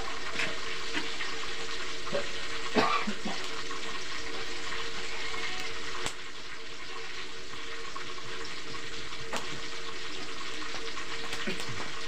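Tofu frying in hot oil in a wok over a wood fire: a steady sizzling hiss with a few sharp pops.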